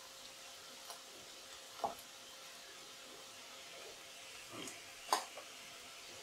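Faint sizzling of a potato fry in hot oil in a steel wok just off the flame, with a few light clicks of a spatula against the pan.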